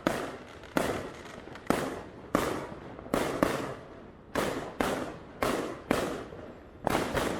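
Firecrackers going off one after another: about a dozen sharp bangs at irregular intervals, each trailing off in an echo.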